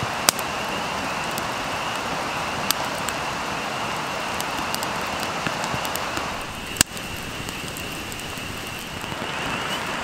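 Steady hiss of rain with a small stick campfire crackling, giving a few sharp pops. After a cut about two-thirds of the way in, the rain hiss goes on slightly quieter without the pops.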